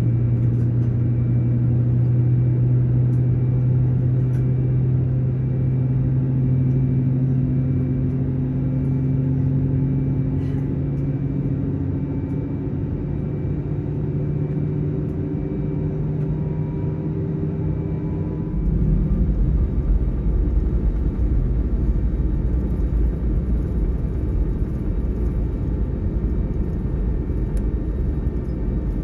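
Airbus A321neo cabin noise from a window seat: the CFM LEAP-1A engines hum with steady tones that slowly rise in pitch. About two-thirds of the way in, the sound switches suddenly to a louder, deep rumble with a hiss on top.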